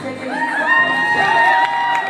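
A crowd cheering and whooping in high-pitched voices, several voices rising and holding together from about half a second in.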